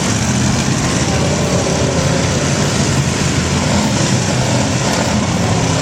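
Several demolition derby cars' engines running and revving together in a steady, loud din.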